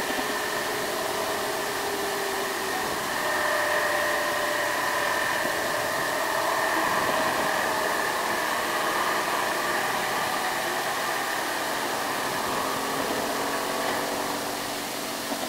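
Micro bus engine running steadily as the bus drives past, a hissing rush of noise with a faint whine that drifts slowly in pitch.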